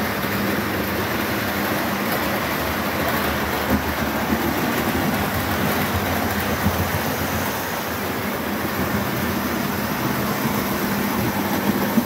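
Model railway train running around the layout: a steady rumbling hum from the locomotive and coaches on the track, with a few light clicks.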